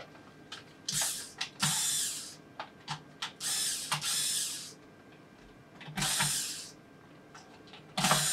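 Corded electric screwdriver running in about five short bursts as it backs out the small screws hidden under the feet of a Logitech G703 mouse, with light clicks of the bit and the mouse shell between the bursts.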